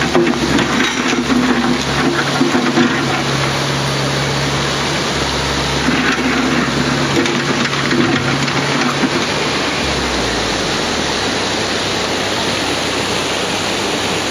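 Mini excavator's diesel engine running, with the hydraulics whining in two spurts as the bucket works through stones. About ten seconds in the engine winds down and stops, leaving the steady rush of a mountain stream.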